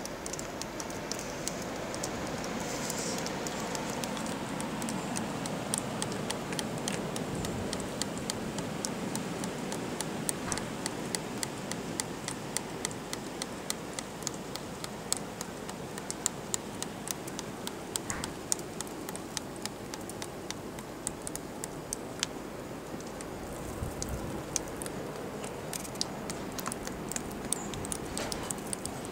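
Blizzard wind blowing steadily, with a constant fine patter of small ticks throughout, typical of wind-driven snow striking nearby surfaces.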